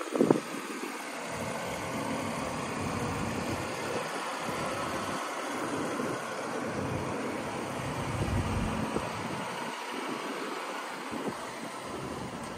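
Mercedes-Benz 560SL's V8 engine idling steadily, heard from outside the car.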